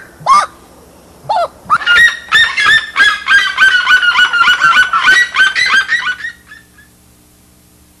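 Red-legged seriema giving its loud yelping call: a fast run of repeated yelps, about five a second, starting a little under two seconds in and trailing off near the end, after two short single calls.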